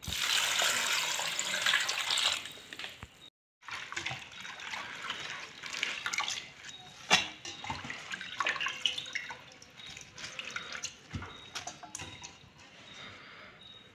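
Tap water running hard into a stainless steel bowl of roselle leaves for about two and a half seconds. After a brief break come softer splashes and clinks as the wet leaves are rinsed and handled in the metal bowl, with one sharp knock about seven seconds in.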